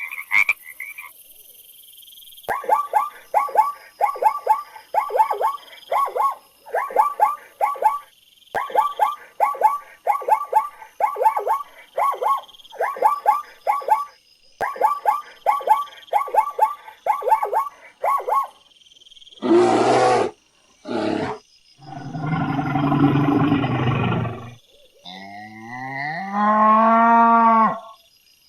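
Frog croaking in short bursts of quick repeated calls for about sixteen seconds. Then come a few loud, rough roaring calls and, near the end, a long bellowing call whose pitch bends up and down.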